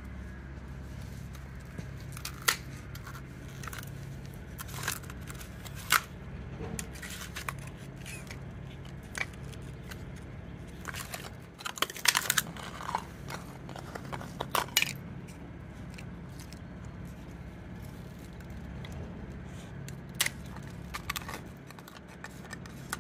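A small dog biting and crunching at sheets of ice on paving slabs, with irregular sharp cracks and clicks of the ice, a quick cluster of them about twelve seconds in, over a steady low hum.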